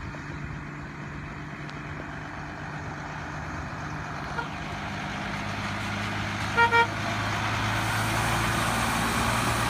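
Fire truck (brush engine) driving up and passing, its engine growing steadily louder as it comes near, with two quick short horn toots about two-thirds of the way through.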